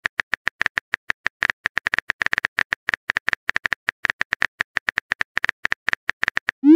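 Keyboard-typing sound effect from a texting-story app: rapid, even clicks, about eight a second, one per letter as a message is typed. Right at the end comes a short rising whoosh as the message is sent.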